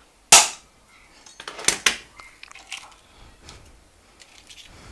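An egg struck sharply against a nonstick frying pan, then several lighter clicks and cracks as the shell is broken open over the pan.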